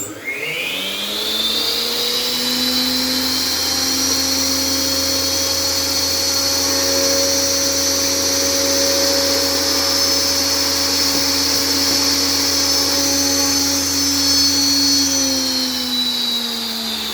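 Homemade single-head aluminium cutting saw switched on: its motor and blade spin up with a rising whine, run steadily at full speed, then begin to wind down with a falling whine about fifteen seconds in.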